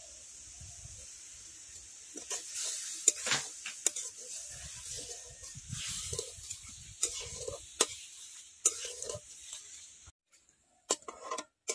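Onion and ground-spice paste sizzling in hot oil in an aluminium karahi, with a metal spatula scraping and knocking against the pan as it is stirred. The sizzle stops about ten seconds in, leaving a couple of last knocks.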